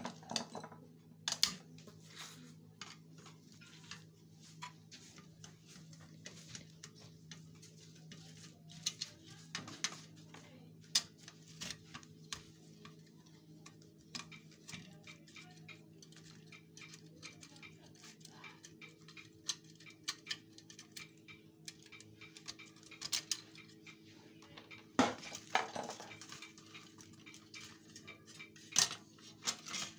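Scattered small clicks, taps and clinks of metal and plastic parts being handled while a flat-panel monitor is dismantled, a few sharper knocks among them, over a steady low hum.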